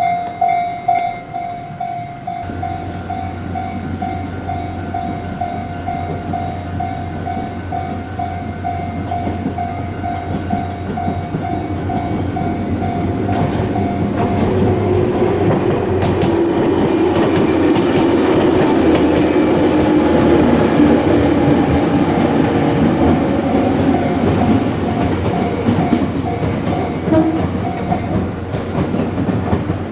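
Japanese level-crossing alarm sounding a rapid repeated tone while an electric train approaches and passes, its low hum and wheel clatter building to the loudest point about two-thirds of the way through and then easing as the alarm keeps ringing.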